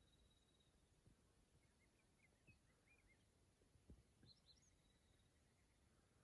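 Near silence with faint bird calls: twice, a short phrase of quick rising notes ending in a held whistle, and a few soft chirps in between.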